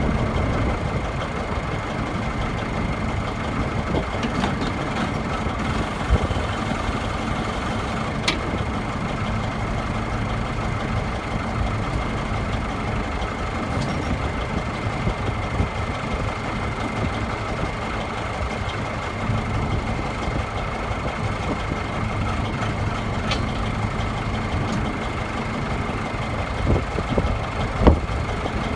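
Case backhoe's diesel engine running steadily at idle, with a steady whining tone over it and a few brief knocks, the sharpest near the end.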